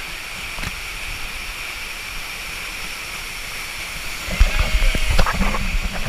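Steady rushing of a waterfall. From about four seconds in, irregular heavy buffeting and knocks on top as spray and gusts strike the camera.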